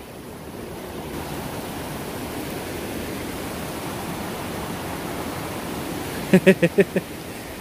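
Steady rushing of a shallow, rocky mountain stream flowing below, growing a little louder about a second in. Near the end, a short burst of a person's voice in five quick pulses.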